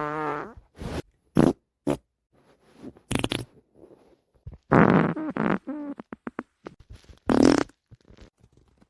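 A series of human farts of different lengths, separated by short silences: several brief puffs, a longer buzzing one with a clear pitch about five seconds in, then a sputtering run of quick little pops.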